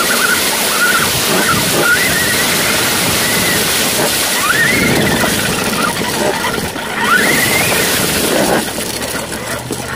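Motorized Tonka tow truck driving across a yard: its small motor whines, rising in pitch a few times as it speeds up, over a loud steady rushing noise.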